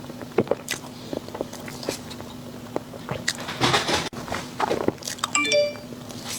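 Close-up eating sounds from eating dessert: small sharp clicks and mouth noises, with a louder crunchy stretch about three and a half seconds in and a brief squeak about five and a half seconds in, over a steady low hum.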